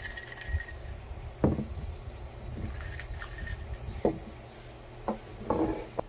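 Glass mugs of iced coffee being handled and set down on a wooden table: a few knocks of glass on wood, the loudest about a second and a half in, more at four seconds and near the end, with light clinks of ice in the glass.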